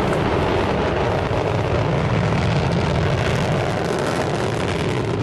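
Rocket engine noise during ascent: a loud, steady rumble with a fine crackle running through it.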